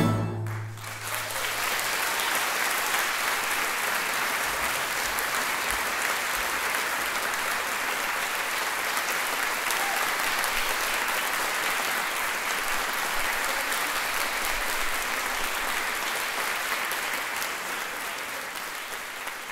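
A concert-hall audience applauding steadily, just after an accordion orchestra's final chord cuts off at the very start. The applause sets in about a second in and fades out near the end.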